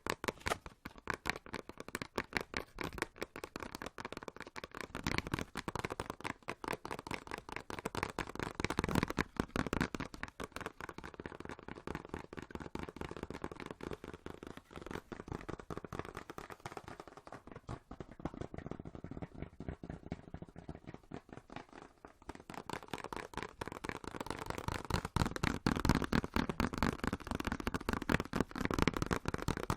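Fast ASMR tapping and hand sounds close to the microphone: a dense, quick run of clicks and taps. It goes softer and duller for a stretch in the middle and grows busier and louder again near the end.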